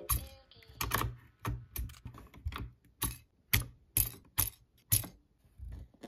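Sharp plastic clacks from the keycaps of a pink Akko mechanical keyboard, about a dozen in an irregular run of roughly two a second.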